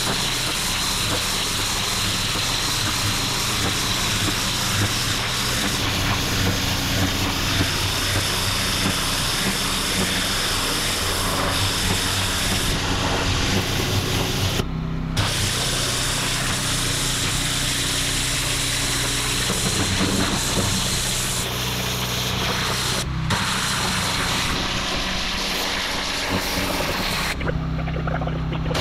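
Pressure washer lance spraying water onto brick paving, a steady hiss with the machine's engine running underneath. The spray cuts out briefly about 15 and 23 seconds in and again for about a second near the end, while the engine keeps running.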